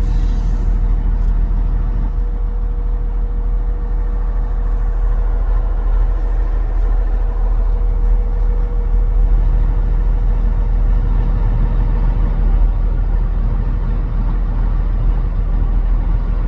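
Six-cylinder diesel engine of a Komatsu PC800 excavator idling steadily, with a deep even rumble and a constant whine.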